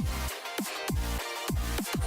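Electronic dance background music with a steady beat and repeated falling bass hits, about two a second.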